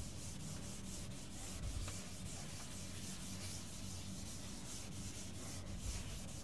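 Faint scratching of a pen writing on paper in short, fairly regular strokes, over a steady low electrical hum.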